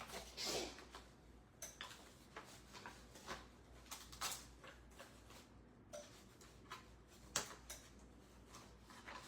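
Scattered light clicks and taps, with a short rustle just after the start, from handling a heat press and a freshly pressed bamboo cutting board.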